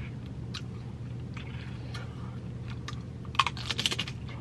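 Close-up eating sounds: a few scattered mouth clicks, then a tortilla chip dipped in queso crunching as it is bitten, a quick run of crisp crackles about three and a half seconds in.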